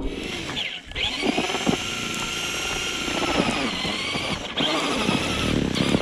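Traxxas Stampede RC truck's electric motor and drivetrain whining at high revs as its wheels spin and churn through deep snow. The whine dips briefly about a second in and again a little past four seconds.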